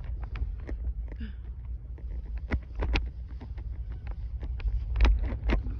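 A grazing horse tearing up and chewing grass, a run of irregular crisp snaps and crunches, over a low wind rumble on the microphone.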